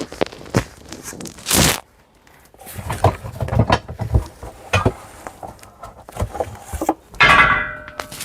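Rustling, scraping and knocking of boxes and bagged bedding being handled and shifted, in a run of short sharp rustles and one longer rustle a little before two seconds in. About seven seconds in comes a short pitched sound.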